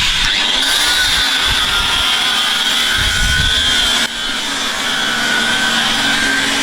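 A steady high-pitched mechanical whine over hiss, its pitch drifting slightly, broken by an abrupt cut about four seconds in.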